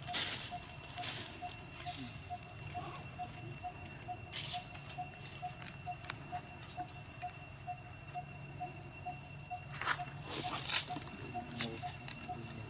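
Outdoor ambience: a bird repeats a short high chirp that dips and rises again, about once a second, over a steady thin high tone and a soft low note pulsing a few times a second, with occasional brief rustles.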